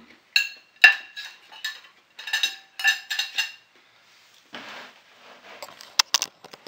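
Metal knife and fork clinking and scraping against a ceramic plate: a quick run of ringing chinks, followed by a brief rustle and a few sharp knocks near the end.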